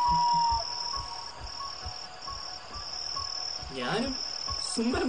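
Insects trilling in a steady high-pitched drone broken by short gaps, with a held tone at the very start and two brief voice sounds near the end.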